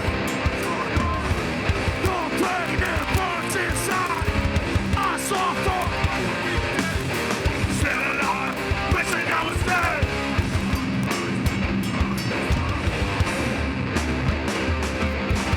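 Heavy band playing loud live: distorted electric guitars and pounding drums, with shouted vocals over them.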